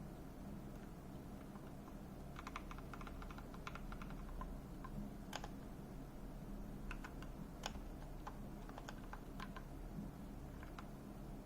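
Typing on a computer keyboard: a quick run of keystrokes about two seconds in, then scattered, irregular key presses, over a steady low hum.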